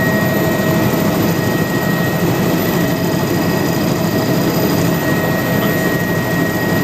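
Helicopter in flight, heard from aboard: a steady, loud drone of engine and rotor with a constant high whine running through it.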